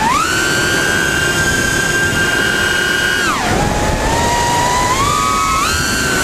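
A 5-inch FPV racing quadcopter's Lumenier 2206 2350kv brushless motors whining at high throttle. The pitch rises right at the start and holds steady. About three seconds in it drops sharply as the throttle is cut, then climbs back up over the next two and a half seconds as the throttle comes back on.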